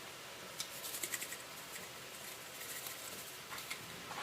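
Onion powder being shaken from a spice shaker bottle: two short bursts of rapid, faint ticking, about a second apart.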